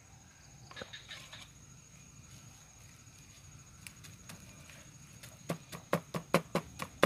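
Knife chopping earthworms into bait: a quick run of sharp knocks, about four a second, starting near the end. Before that, a brief rustle about a second in.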